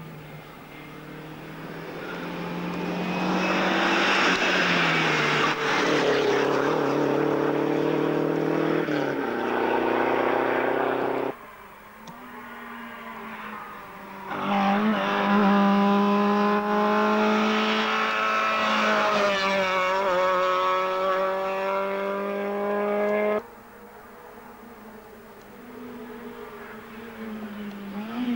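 Rally car engines under power on a stage road, one car after another. The first grows louder over about ten seconds with its pitch dropping at gear changes, then cuts off abruptly. A second holds a steady note for about nine seconds and also cuts off abruptly, and a third approaches near the end.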